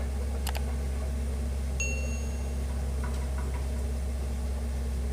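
Excavator's diesel engine idling with a steady low hum, with a sharp click about half a second in and a short high ping about two seconds in.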